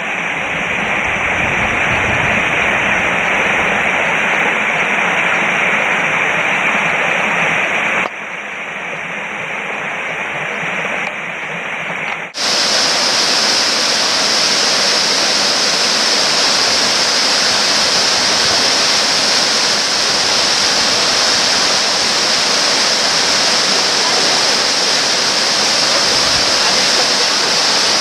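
Waterfall cascades rushing: a loud, steady rush of falling water that shifts abruptly about eight seconds in and again about twelve seconds in, fuller and brighter after the second change.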